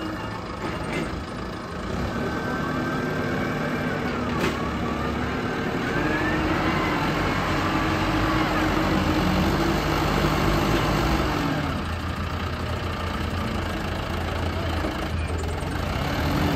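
Wheel loader's diesel engine running and revving under load as the machine drives forward and pushes its grapple into a pile of wood offcuts. The engine picks up about two seconds in and again around six seconds, holds high, then eases back a little near twelve seconds.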